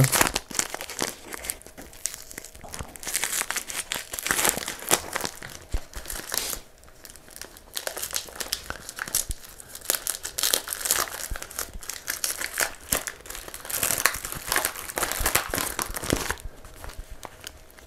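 Packaging of a Swedish-bitters herb mix crinkling and tearing as the bag is worked open by hand. It comes in irregular crackly bursts, with a short lull about seven seconds in.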